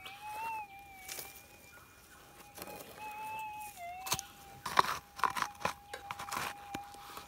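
Minelab GPX 6000 gold detector's steady threshold hum, wavering slightly. From about four seconds in, soil crunches and rattles in a plastic scoop passed under the Coiltek Goldhawk coil. The hum stays flat with no target signal, so the small piece of gold has been missed and is not in the scoop.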